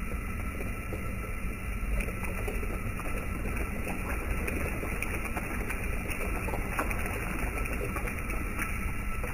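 Steady rumble and hiss of a propane burner under a stainless kettle of wort at a rolling boil, with faint clicks here and there as hop pellets are poured in.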